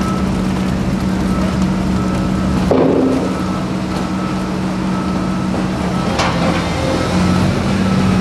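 Diesel engine of a tracked demolition excavator running steadily, with a knock about three seconds in and a sharp clank a little after six seconds.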